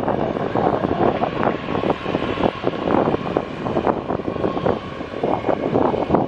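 Jet airliner's engines giving a faint steady whine under heavy wind buffeting the microphone; the buffeting is the loudest part.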